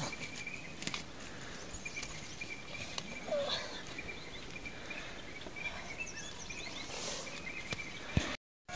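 Rural outdoor ambience: small birds chirping faintly, with a thin, steady high call running under it and a few light clicks. The sound drops out completely for a moment near the end.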